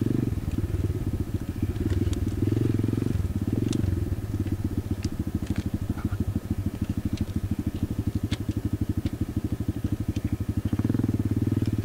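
Apollo RFZ 125cc pit bike's single-cylinder four-stroke engine running at low revs, then dropping to a slow, pulsing idle for about six seconds after being knocked into neutral, and picking up again near the end. A few faint sharp clicks are scattered through it.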